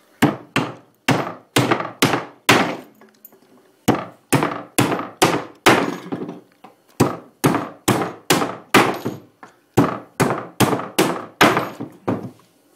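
Steel framing hammer striking a pine 2x4 on a workbench: about two dozen sharp wooden blows, roughly two a second, in four quick runs with short pauses between them.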